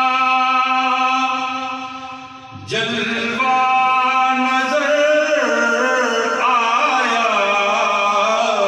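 A man chanting a naat, an Urdu devotional poem in praise of the Prophet, into a microphone. One long held note fades out about two and a half seconds in. Then a new phrase starts, its pitch wavering and ornamented.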